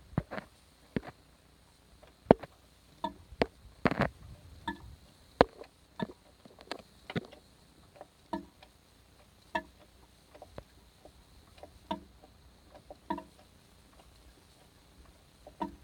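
Irregular metallic clicks and knocks from a piston of a DW12UTED 2.2 HDi diesel engine, one every half second to a second and a half, each with a short ring. This is the odd noise the owner traces to this piston, with no engine running underneath it.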